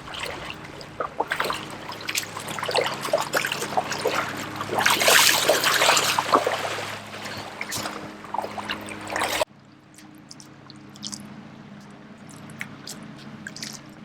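Water splashing, trickling and dripping in many small irregular splashes, loudest about halfway through. It cuts off suddenly after about nine seconds to a quieter, steadier water sound.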